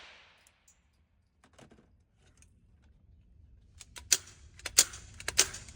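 A gunshot's echo fades out in an indoor range, then after a near-silent pause comes a run of sharp, irregular metallic clicks and knocks from a firearm being handled.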